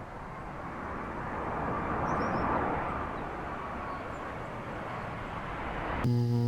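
Airplane passing overhead: a rushing noise that swells about two seconds in and then eases off. Near the end a louder, steady buzzing tone cuts in suddenly.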